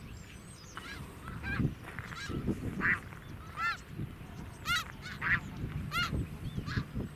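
A flock of snow geese calling: short honks from several birds, scattered and overlapping, loudest in the second half.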